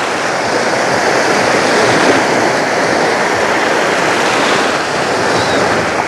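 Small Black Sea waves breaking and washing up a sandy shore, a steady wash of surf.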